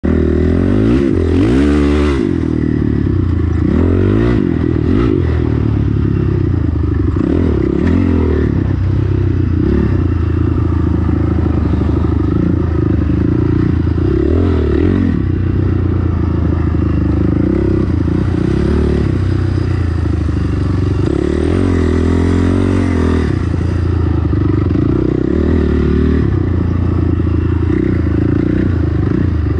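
Dirt bike engine running under load, its pitch repeatedly rising and falling as the throttle opens and closes and the gears change.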